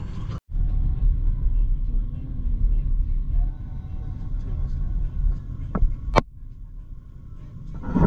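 Low road and engine rumble of a car driving, heard from inside the cabin, with two sharp clicks a little past the middle, after which the rumble is quieter.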